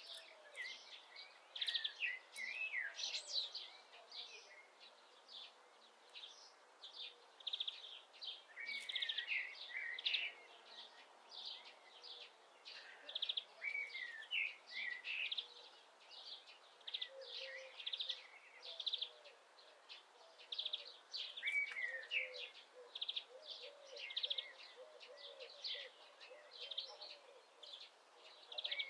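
Common starling singing a long, rambling song of buzzy rattles, clicks and gliding whistles, with some lower notes coming in during the second half.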